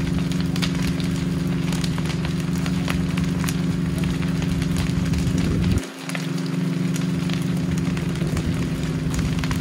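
Building fire crackling with many sharp pops, over a steady low machine hum. The hum briefly drops out about six seconds in.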